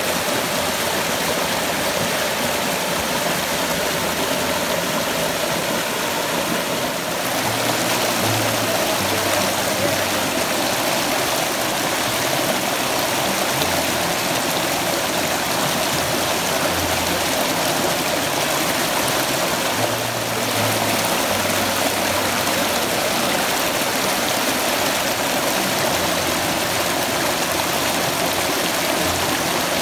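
Creek water rushing and tumbling over boulders in small rapids, a steady loud rush that grows slightly louder about seven seconds in.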